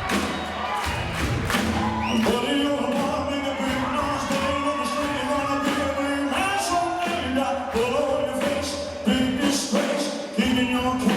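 Live band playing, with drums keeping a steady beat under several voices singing long held notes together.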